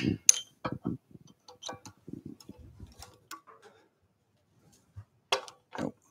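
Light metal clicks and clinks as a chuck key is handled and fitted into a woodturning lathe's scroll chuck, with two sharper knocks near the end.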